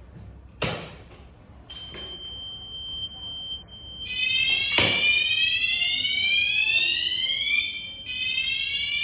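Conventional fire alarm sounders going off after a manual call point is operated: a slow rising sweep tone that restarts about every four seconds, coming in about four seconds in, which shows the sounders are working as they should. A steady high tone is heard just before the sweep starts, and there are two sharp knocks, one near the start and one about halfway.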